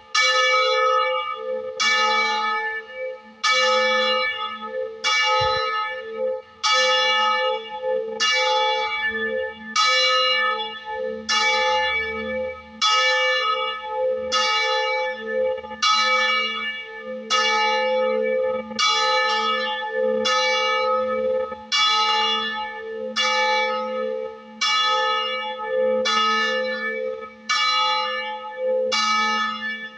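Church bell in a tower, one of three bronze bells cast in 1926, ringing with an even strike about every second and a half, each stroke ringing on into the next.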